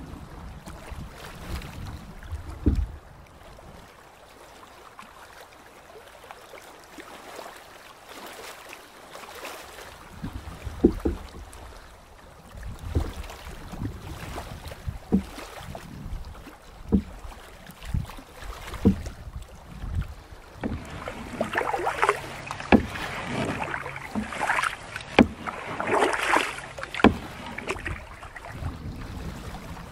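Canoe paddle strokes in the water, roughly one every two seconds, each a short splash, over light wind and water around the hull. The strokes start about ten seconds in after a quieter stretch, and near the end the splashing is louder.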